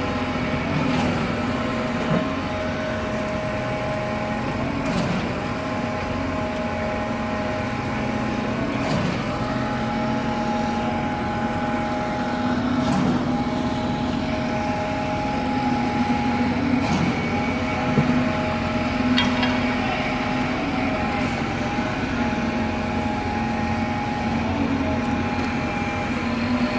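A steady mechanical hum of a running motor, with several held tones, and a faint sharp tick about every four seconds.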